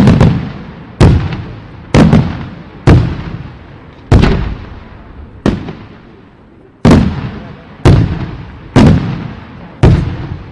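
Fireworks going off in quick succession: about ten sharp booms, roughly one a second, each followed by a rolling echo that dies away before the next.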